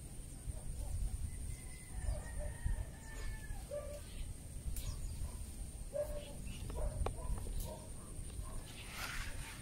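A few faint animal calls, short and tonal, over a constant low rumble and a thin steady high whine.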